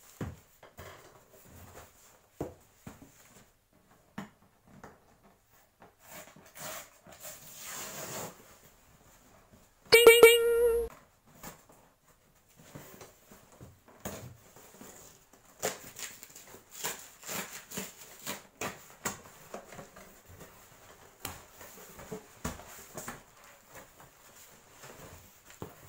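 Hands opening a cardboard shipping box: flaps pulled open and packing paper rustling and crackling, with many small knocks and clicks. About ten seconds in, a loud, short, high-pitched yelp cuts through for under a second.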